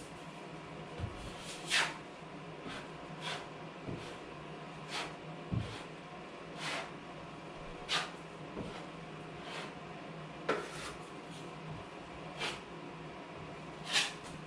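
Brief scraping strokes on drywall, about one a second and uneven in spacing, over a faint steady hum.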